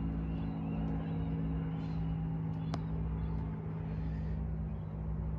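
A steady mechanical hum at one pitch, with a low rumble under it; a single sharp click a little before the middle.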